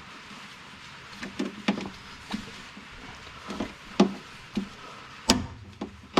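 A hand pop rivet gun being squeezed stroke by stroke, making a series of sharp irregular clicks, with the loudest snap a little after five seconds in. That snap is typical of the rivet's mandrel breaking off as the rivet sets.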